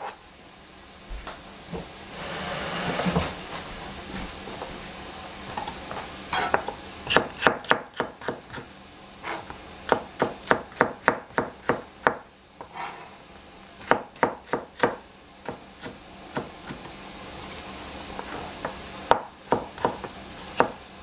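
Chef's knife chopping celery on a plastic cutting board. The crisp strokes come in runs of about three a second, starting about six seconds in, with short pauses between runs.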